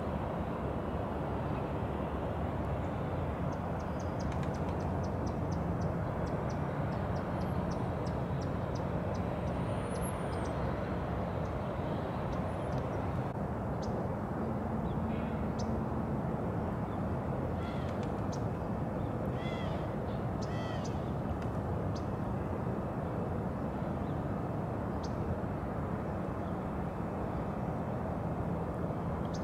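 Outdoor background of a steady low rumble, with bird calls over it: a run of quick repeated chirps for several seconds in the first third, and a few short harsh calls a little past the middle.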